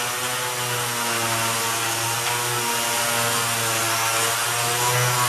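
Electric sander fitted with 220-grit sandpaper running steadily on a painted wooden tabletop, a constant motor hum that holds one speed throughout.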